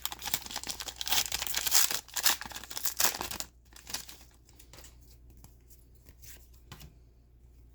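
A trading card pack's wrapper being torn open and crinkled: dense crackling for about three and a half seconds, then only faint scattered rustles and ticks.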